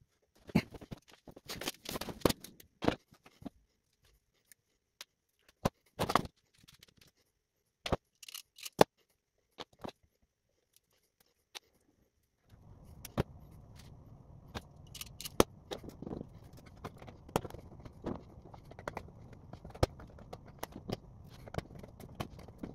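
Clicks, snips and scrapes of wire strippers and small electronic parts being handled on a workbench as a wire is cut and stripped. About halfway through, a steady low hum comes in underneath the clicks.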